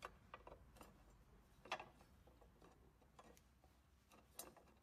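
Faint clicks and ticks of a long screwdriver working a screw into the side cover panel of an exercise machine, a handful of sharp clicks with the loudest about a second and a half in.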